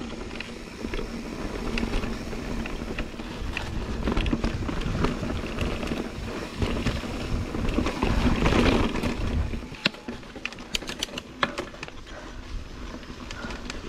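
Mountain bike rolling fast down a dirt singletrack: wind buffeting the handlebar-mounted camera's microphone, together with tyre noise and the bike rattling. The rumble is loudest about eight to nine seconds in and drops at about ten seconds, leaving lighter clicks and rattles.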